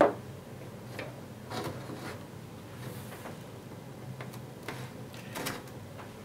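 A sharp click, then scattered light knocks and rubs as a painted plastic car nose cone is handled and shifted on a table.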